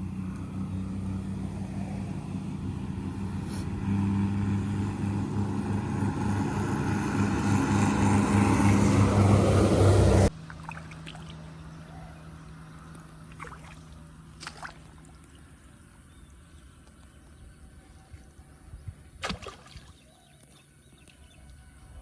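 An engine running steadily, growing louder, then cut off abruptly about ten seconds in. Quieter open-air sound follows, with a few faint knocks.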